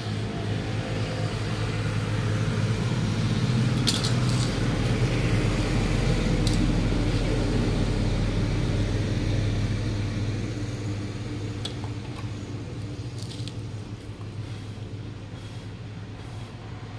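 A vehicle engine's steady low hum that grows louder over the first few seconds and fades away in the second half. A few light sharp clicks sound over it.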